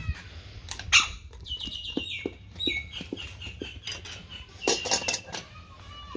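A wooden spoon tapping and scraping against an opened tin can and a steel dog bowl, with a sharp tap about a second in. Runs of short, high chirping calls come twice over the tapping.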